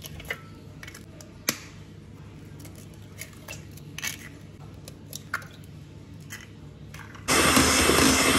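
A few sharp taps and cracks of eggshells against a stainless steel bowl over a quiet background. About seven seconds in, an electric hand mixer comes in loud and steady, its beaters whirring through cake batter in a steel bowl.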